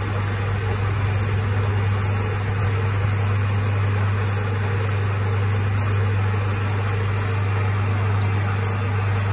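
Metal lathe running under a deep turning cut, a reground carbide insert cutting the work with coolant pouring over it: a steady low hum under an even rushing wash of noise.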